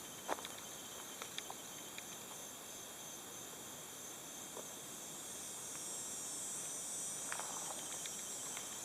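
A steady high-pitched chorus of insects buzzing in the woods, growing stronger about halfway through, with a few faint clicks.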